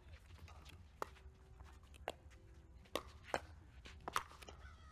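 Pickleball paddles striking a plastic pickleball in a fast exchange at the net: about five sharp pops, roughly a second apart and coming quicker toward the end.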